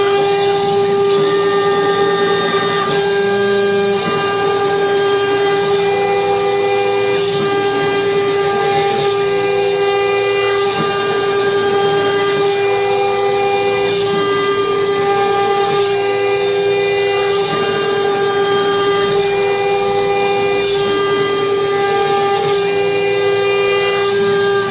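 Mini CNC machine running steadily while cutting MDF, with a loud, steady whine. A second, slightly higher tone comes and goes about every couple of seconds.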